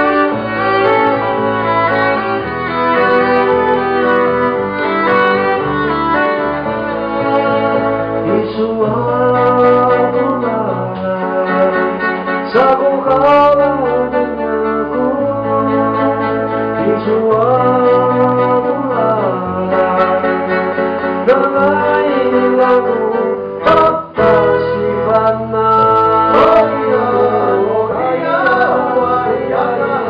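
Live acoustic band music: a man sings lead while strumming an acoustic guitar, accompanied by violin and cello.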